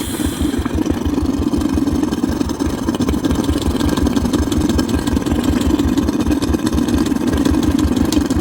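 Royal Enfield Classic's single-cylinder four-stroke engine idling steadily with an even, fast beat, freshly rebuilt (new piston rings and valve guides) and running smoothly.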